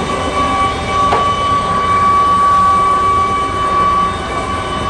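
Aircraft turbine engine running with a steady high whine over a low rumble, and a single short knock about a second in.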